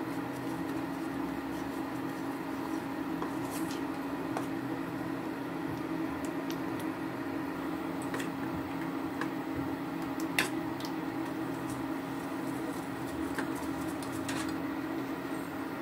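Metal spoon stirring thin batter in a stainless steel bowl, with scattered light clicks of the spoon against the bowl and one sharper click about ten seconds in, over a steady low hum.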